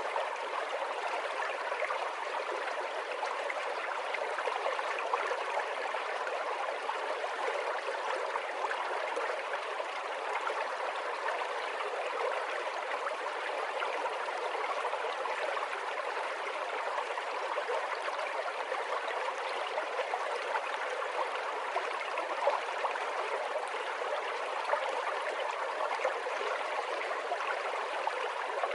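Steady flowing water of a stream, running evenly without a break, used as a water sound effect.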